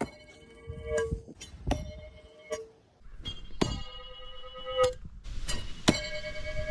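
A metal object struck repeatedly, about seven sharp hits under a second or so apart, each one ringing on with several clear tones.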